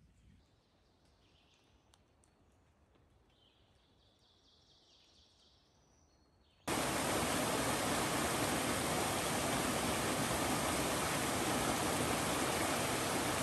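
Near quiet with faint bird calls, then about halfway through a sudden switch to a loud, steady rush of running water.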